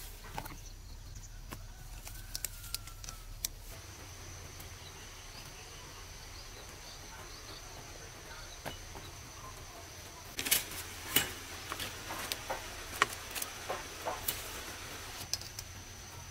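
Sharp knocks and clicks of sponge gourds being handled in a plastic basin, clustered from about ten to fourteen seconds in. Underneath is quiet outdoor background with a thin steady high whine that starts a few seconds in.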